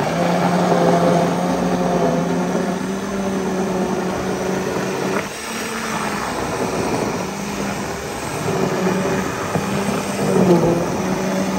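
Electric blender running, grinding melon seeds (wrewre) with water into a paste. Its motor makes a loud, steady hum that dips briefly about five seconds in.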